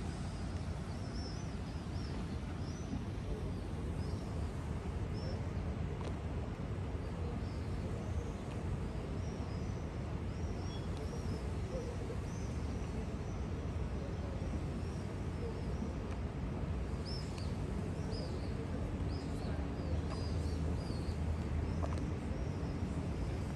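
Many short, high bird chirps repeating over a steady low rumble of background harbour and city noise.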